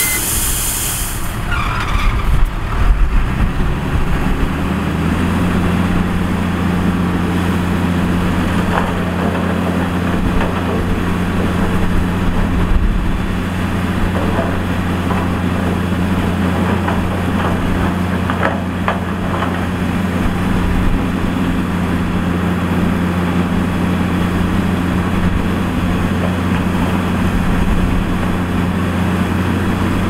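Heavy diesel engine of a construction machine running, with a short hiss right at the start; about five seconds in it settles into a steady, held engine speed.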